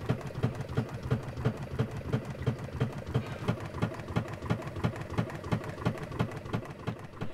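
Sailboat's inboard diesel engine running down in its engine bay, with a regular pulsing about four times a second. A raw-water cooling hose has come off its siphon, so seawater is flooding the engine bilge.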